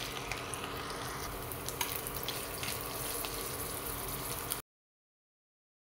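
Cubes of soy-based vegetarian spare rib sizzling in hot cooking oil in a stainless steel pan, with a few light clicks. The sizzle cuts off suddenly about four and a half seconds in.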